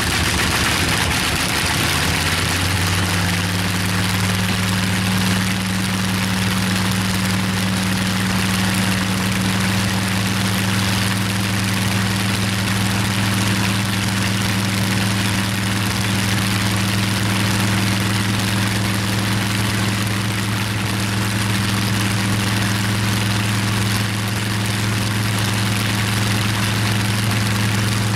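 Bristol Hercules fourteen-cylinder, double-row sleeve-valve radial engine running, picking up speed slightly about two seconds in, then holding a steady speed.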